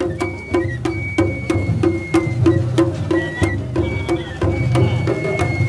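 Japanese festival hayashi music played on the float: taiko drums beaten in a steady rhythm of sharp strikes about four a second, with a high shinobue flute playing held notes over them.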